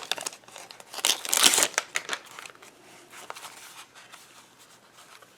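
Paper and cardboard packaging crinkling and rustling as a small box is handled and opened. The loudest rustles come near the start and about a second in, then die down to faint scattered clicks of handling.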